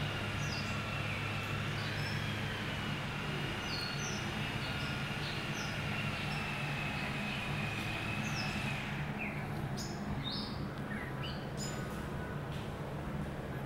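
Outdoor ambience: birds chirping in short scattered calls over a steady low hum, with a thin high steady tone that fades out about nine seconds in.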